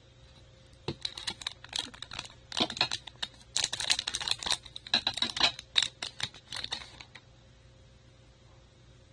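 Baseball trading cards being handled: a quick, irregular run of papery clicks and rustles that stops after about six seconds.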